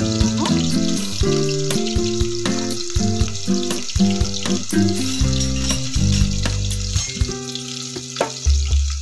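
Chopped onions and green chillies sizzling in hot oil in an aluminium pressure cooker, with background music over it.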